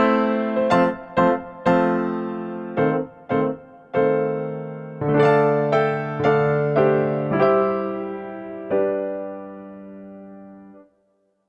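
Background music played on an electric piano: single notes and held chords, each ringing and dying away, the last chord fading out and stopping shortly before the end.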